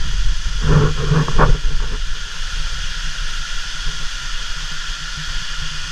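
Steady, loud rush of a tropical waterfall close to the microphone, with a brief voice heard over it about a second in.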